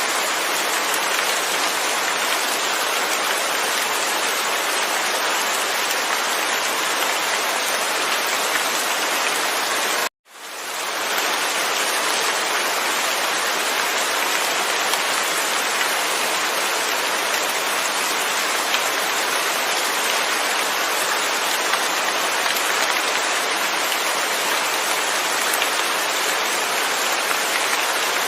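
Steady rain falling, with no thunder: an even hiss of drops. About ten seconds in it cuts out abruptly and fades back up within about a second.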